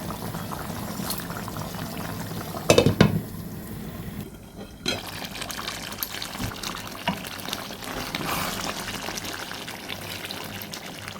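Beef curry cooking in a pot, bubbling and sizzling in its oil and spice paste. A loud knock sounds about three seconds in, and the sound drops out briefly a little before halfway.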